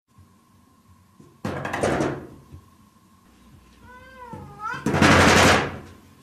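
A domestic cat meows once, a short wavering call about four seconds in, between two loud rough noise bursts about a second and a half in and about five seconds in, the second the loudest. A faint steady tone runs underneath.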